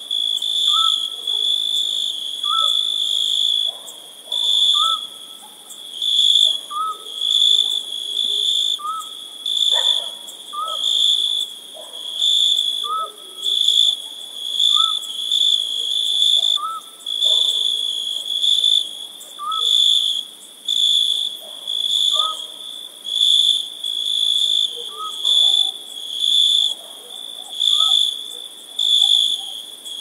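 Crickets chirping in a dense chorus: a high, steady trill that swells and fades roughly once a second, with a fainter short rising note lower down repeating every couple of seconds.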